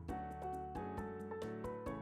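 Background music: a gentle instrumental track with piano-like notes over a light, steady beat.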